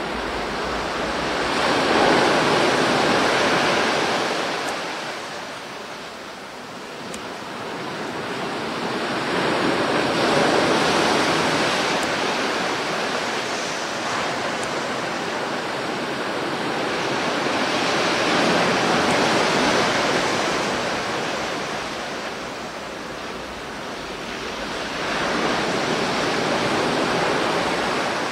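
Sea surf breaking on a sandy beach and washing back. It swells and fades four times, about every eight seconds.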